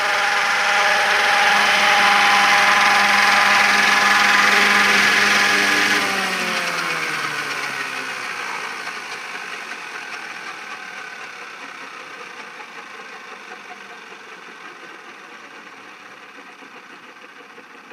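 Large-scale radio-controlled AS350 helicopter hovering with its rotor and drive running steadily, then powering down about six seconds in: the pitch falls and the sound fades as the rotor spins down after landing.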